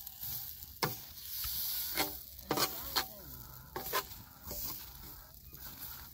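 A metal spatula scraping and tapping on a hot iron griddle as oak-flour dough is spread and flattened, with several sharp scrapes over a steady sizzling hiss.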